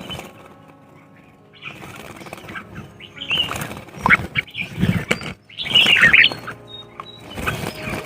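Birds flapping their wings in a flurry, with short chirping calls; the loudest flurry comes about six seconds in.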